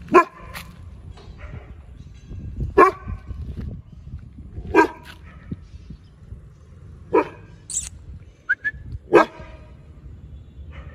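Rajapalayam hound barking at a stranger: five single loud barks, one about every two to two and a half seconds, over a low outdoor rumble.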